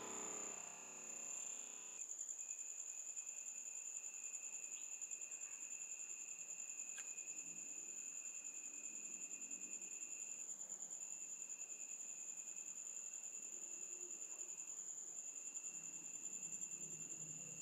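Night insects, likely crickets, trilling continuously. A high pulsing trill carries on throughout, and a lower trill breaks off twice and picks up again.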